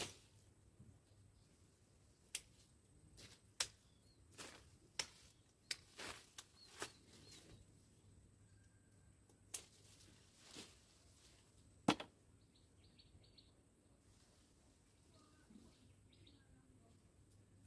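Sharp clicks from small branches being pruned off a tree by hand, about eleven spread irregularly over the first twelve seconds.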